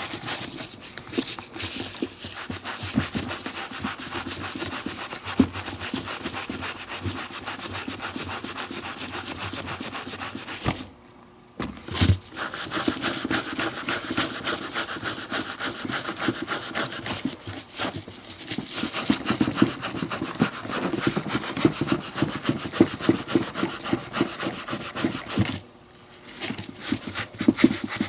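Stiff-bristled hand brushes scrubbed rapidly back and forth against the leather lining inside a baseball glove, working sand and dirt loose. The scrubbing stops briefly about eleven seconds in and again near the end, with a sharp knock just after the first pause.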